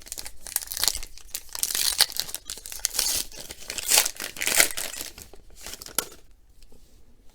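Wrapper of a baseball-card pack being torn open and crinkled in the hands. The crackling goes on for about six seconds, then dies down.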